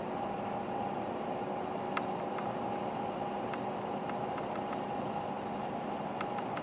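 EVGA 750 BQ 750 W power supply running at full load: a steady fan whir with a few constant hum tones. A handful of faint clicks come through, the sharpest about two seconds in.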